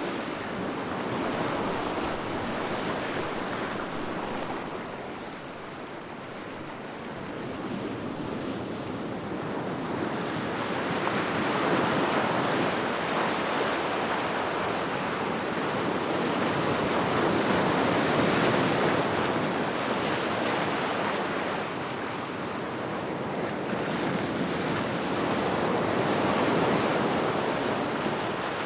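Sea waves breaking and washing on the shore in a steady wash of surf that swells and eases every several seconds.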